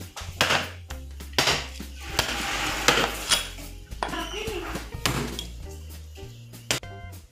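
A heavy cleaver chopping through a large fish onto a cutting board: a series of sharp chops at irregular intervals. Background music plays throughout.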